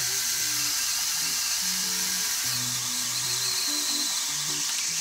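Background music with a melody of held low notes, over a steady high buzz from a battery-powered brushless mini chainsaw running on a pole-saw extension.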